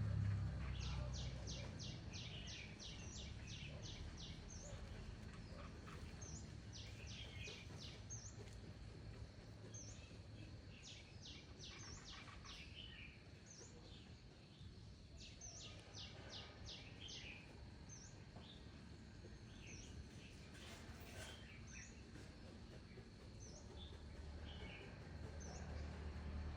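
Small birds chirping: quick runs of short high notes, about five a second, come four times, with single chirps in between. Under them is a faint low rumble.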